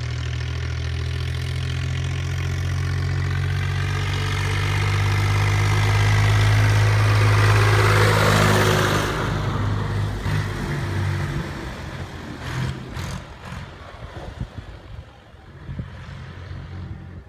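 David Brown 1190 tractor's four-cylinder diesel engine running under way as the tractor drives up and past, growing louder to a peak about eight seconds in, with a rush of tyre noise on gravel as it passes, then fading as it goes away.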